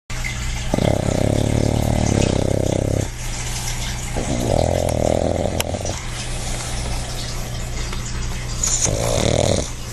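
A pug snoring in its sleep: three snores, the first over two seconds long and the last short, over a steady low hum.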